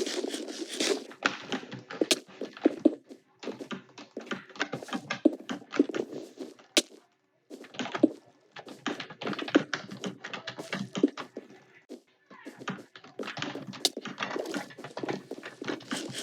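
Computer keyboard typing: rapid runs of key clicks in bursts, broken by short pauses.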